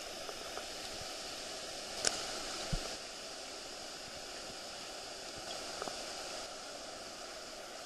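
White water pouring over a river weir: a steady rushing hiss, with a sharp tick and a dull knock a little after two seconds in.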